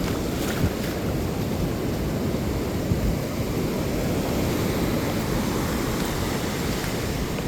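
Steady low noise of wind buffeting the microphone mixed with ocean surf, with a few faint ticks.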